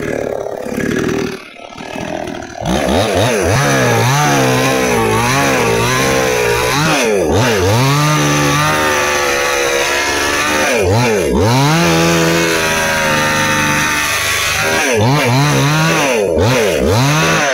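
Nagano MN 6000 two-stroke chainsaw cutting through a log: it runs at lower speed at first, then revs up about three seconds in, its engine pitch dipping and recovering several times.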